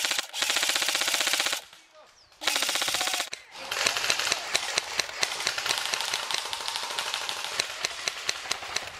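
Airsoft electric guns firing full-auto: two rapid rattling bursts of about a second each with a short pause between, then looser, irregular firing with single sharper cracks.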